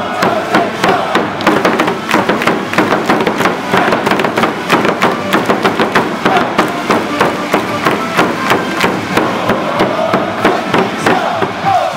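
Baseball stadium crowd cheering in rhythm: a steady beat of claps or cheering-stick strikes, about three or four a second, with chanting voices rising near the end.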